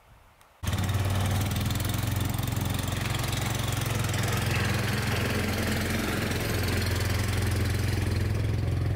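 Engine of an Argo amphibious eight-wheel ATV running steadily as the machine drives through a shallow creek; the sound cuts in abruptly about half a second in.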